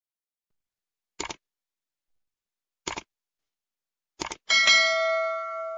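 Subscribe-button animation sound effects: two single clicks about a second and a half apart, then a quick double click, then a bell chime that rings on and fades over about a second and a half.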